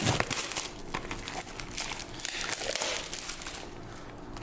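Plastic shrink-wrap crinkling and tearing as it is pulled off a sealed trading-card booster box. The crackling is busiest in the first second and thins out toward the end.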